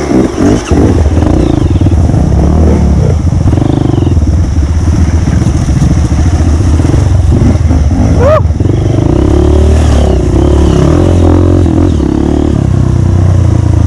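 Trail motorcycle (dirt bike) engine running steadily while riding, close to the microphone, its note rising and falling slightly with the throttle.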